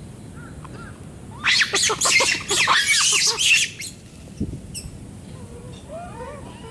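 A loud burst of rapid, shrill animal calls lasting about two seconds, starting about a second and a half in, followed near the end by faint short chirping calls.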